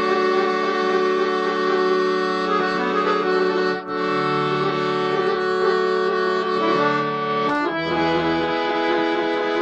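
Paolo Soprani piano accordion played solo: a melody over sustained chords, the reeds sounding steadily, with two brief breaks in the sound about four and seven and a half seconds in.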